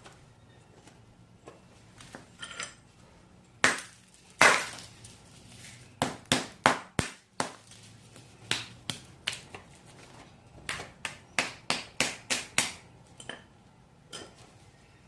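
Repeated sharp knocks and cracks of a solid block of ice being struck and chipped apart, with brittle clinks, in quick runs of about twenty blows. It is being broken open to free a flashlight frozen inside.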